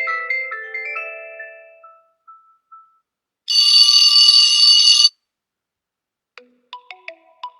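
OnePlus 12 ringtones playing in turn. A marimba-like melody ends and fades out over the first two seconds, then a loud, bright, bell-like ring lasts about a second and a half. Near the end a new tune of short plinking notes begins.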